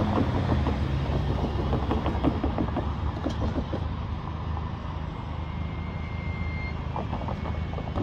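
Road traffic crossing a multi-track railroad grade crossing: a steady low rumble of passing cars, with tyres clattering over the rails, busiest in the first few seconds and again near the end.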